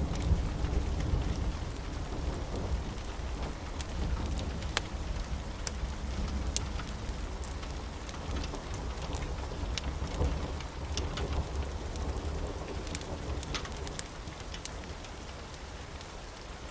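Steady rain with a low thunder rumble that fades away near the end, and scattered sharp crackles from a fireplace.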